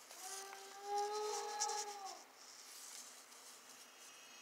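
A child's voice making a dinosaur call: one long held note of about two seconds that drops in pitch as it ends, with a light rustle of the paper cut-out being handled.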